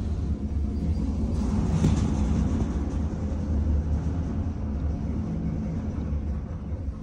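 Glass-walled lift car travelling in its shaft, heard from inside the cab: a steady low rumble with a faint hum.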